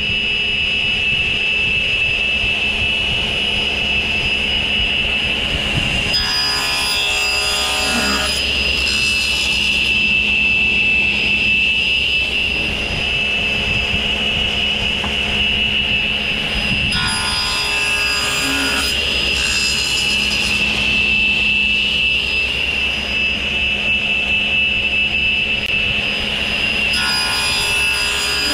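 Sliding table saw running steadily with a high whine, crosscutting plywood three times about ten seconds apart; each cut is a louder rasping stretch of about two seconds.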